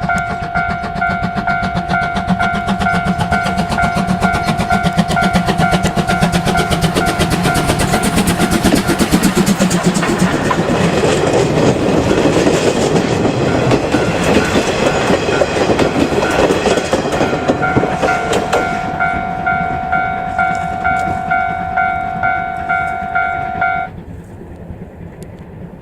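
Level-crossing warning bell ringing in an even, pulsing tone while a steam-hauled train (C12 66 locomotive with 50-series coaches) passes over the crossing. The rumble and rapid clatter of the wheels swell loudest in the middle and cover the bell, then fade. The bell stops abruptly near the end as the crossing clears.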